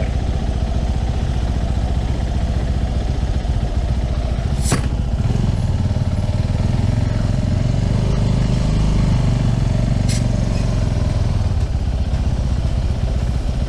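Motorcycle engine running at low speed as the bike rolls down a steep, loose slope, a steady low rumble that swells in the middle. Two sharp clicks, about five and ten seconds in.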